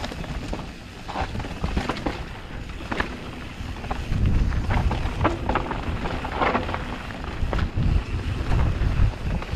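Mountain bike descending a rough trail: wind buffeting the microphone as a low rumble, heavier from about four seconds in, with the bike rattling over the ground in scattered knocks.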